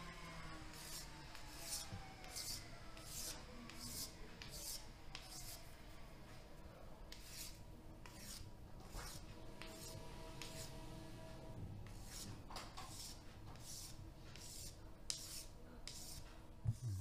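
A small hand file scraping over a small gold-coloured metal piece in a regular rhythm of short strokes, about three every two seconds, as the piece is filed to shape by hand.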